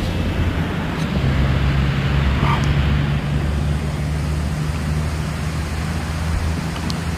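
A steady low droning rumble with a faint hum, and a few small clicks.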